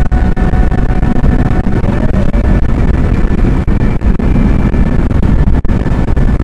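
Cabin noise of a car cruising at highway speed: a loud, steady low rumble of tyres on the road and wind.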